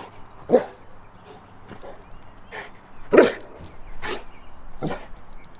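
Cane Corso barking on the "watch" command: several separate single barks at uneven spacing, the loudest about three seconds in.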